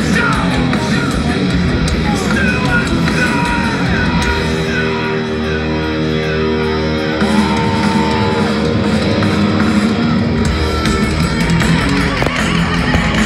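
Live heavy metal band playing loud through a festival PA, picked up from inside the crowd on a phone microphone. About four seconds in the drums drop out for a few seconds of held chords, then the full band comes back in.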